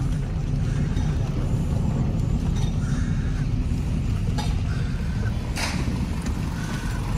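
Steady low rumble inside a car's cabin as it drives slowly on a wet road: engine and tyre noise. A short hiss comes about five and a half seconds in.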